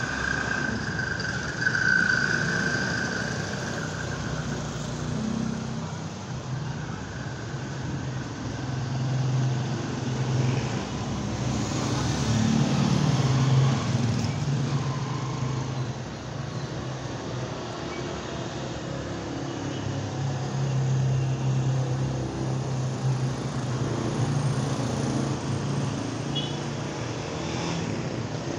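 Street traffic: motor vehicle engines running and passing, a steady low hum that swells and fades twice. A brief high-pitched tone sounds about two seconds in.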